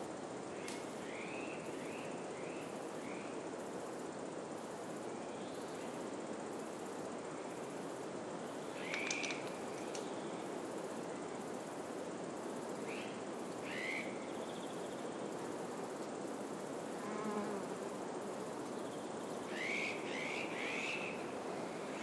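Wind moving through pine trees as a steady hiss, with a small bird chirping briefly a few times, in a short run of chirps near the end.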